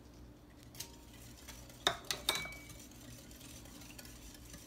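Wire whisk stirring the young coconut pie filling in a glass mixing bowl, with a small click just under a second in and three sharp ringing clinks about two seconds in.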